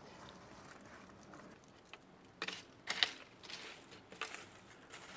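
Leaves at the fire opening of a clay stove crackling, with a faint rustle and then a handful of sharp snaps from about two and a half seconds in.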